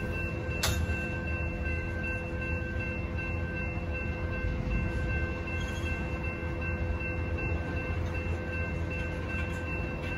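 Freight train's covered hopper cars rolling steadily over a grade crossing: a low rumble of wheels on rail, with steady ringing tones from the crossing warning bell. There is one sharp clank about half a second in.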